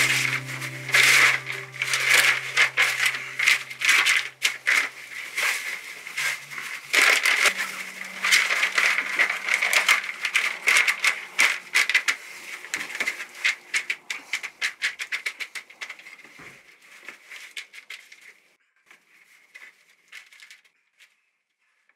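Thin plastic sheeting crinkling and rustling as it is spread and smoothed out by hand, a dense run of crackles that thins out and stops near the end.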